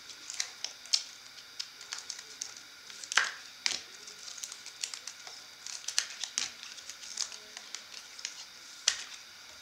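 Trading card packs and cards being handled: irregular crinkling of foil wrappers with sharp clicks and snaps, a few louder ones scattered through.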